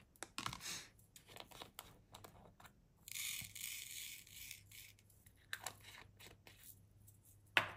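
Small plastic diamond-painting drills poured into a plastic tray and shaken in it, a dry rattling hiss lasting about two seconds midway, with small clicks and taps of the container and tray around it.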